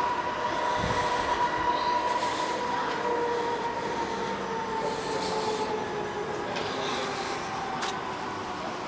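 Fairground background noise with a long, steady high whine running through it that sinks slowly in pitch in the second half.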